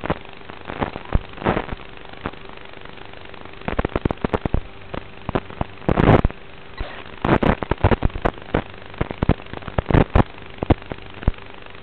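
Static from an analog FPV video receiver's audio channel: a steady hiss with a faint hum, broken by clusters of crackling pops. The pops come as the radio link breaks up.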